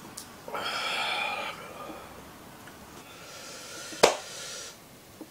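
A man's heavy breathy exhale about half a second in, then a second, fainter breath and a single sharp hand clap about four seconds in.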